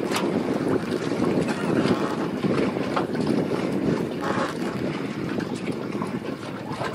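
Steady low rumble of a boat on the river, with wind buffeting the microphone.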